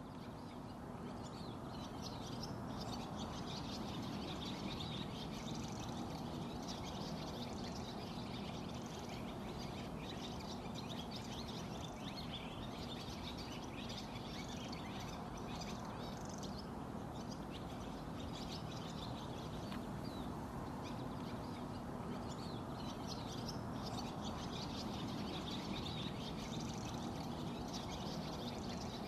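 Many birds chirping and calling over a steady rushing background, likely the flowing river; the sound fades in over the first couple of seconds.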